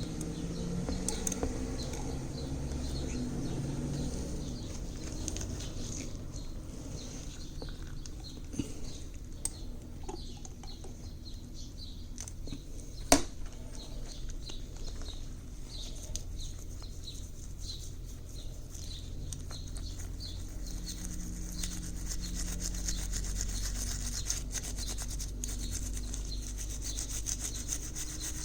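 Repeated hand rubbing or scrubbing strokes, with one sharp click about 13 seconds in.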